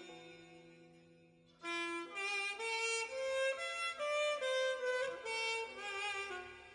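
A melody in a violin-like lead tone from a Zoom 505 II multi-effects patch: one held note fading away for about a second and a half, then a phrase of sustained, gliding notes at about two a second.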